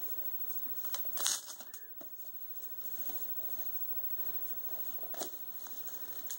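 Gift-wrapping paper crinkling and tearing as a small child unwraps a wrapped DVD case by hand. The crackly bursts come about a second in and again near the end.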